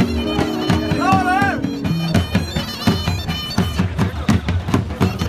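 Music of a reed wind instrument and drum: the pipe holds sustained notes and plays a short wavering phrase over a quick, steady drum beat. The pipe drops out about two seconds in, leaving the drum.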